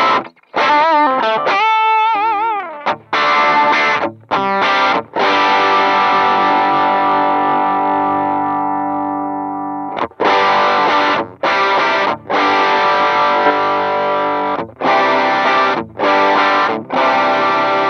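Electric guitar played through a Demonfx overdrive pedal with distortion. A short phrase with wide vibrato on held notes gives way to a chord left ringing for several seconds and then cut off, followed by strummed chords with brief gaps between them.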